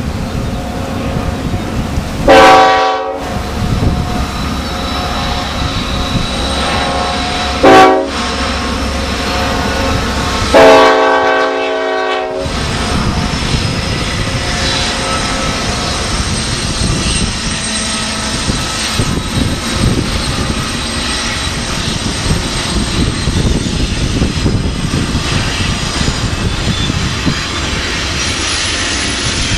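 A BNSF diesel freight's locomotive horn sounds three times: a blast of about a second, a short toot, then a longer blast of about two seconds. After that comes the steady rumble of the GE diesel locomotives and the empty well cars rolling past on the rails.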